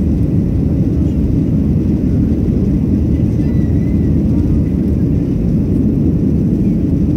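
Steady low cabin noise of a Boeing 737-700 climbing out after takeoff: its CFM56-7B jet engines and airflow heard inside the cabin from a seat over the wing, even in level throughout.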